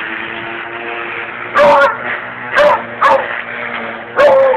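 Beagle barking four times, short and loud, at a running electric string trimmer (weed wacker), whose steady motor hum carries on underneath.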